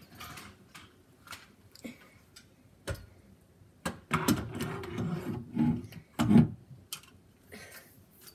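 Handling and movement noise of a child moving about near the camera: scattered knocks and sharp clicks, with a busier stretch of shuffling and rustling in the middle.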